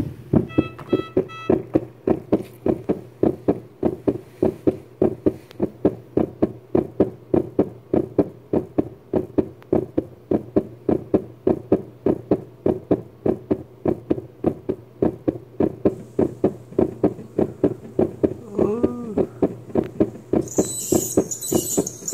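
Background music with a steady, quick beat. Near the end a high hiss joins in, from an ultrasonic dental scaler spraying water as it cleans a dog's teeth.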